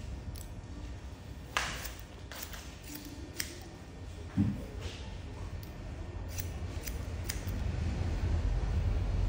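Barber's hair-cutting scissors snipping through wet hair held between the fingers: a string of short, sharp snips at an uneven pace, with a low thump about four and a half seconds in, over a steady low rumble.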